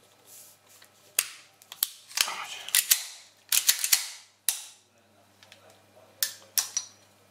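Korth PRS .45 ACP pistol being put back together by hand: the slide is fitted onto the frame and worked, giving a run of sharp metallic clicks and clacks, densest around the middle, with two more clicks near the end.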